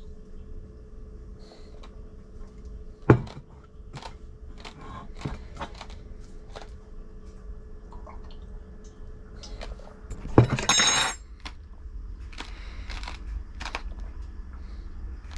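Small mouth and handling noises of someone drinking from a bottle: scattered faint clicks over a faint steady hum, a sharp knock about three seconds in, and a short louder burst a little after ten seconds.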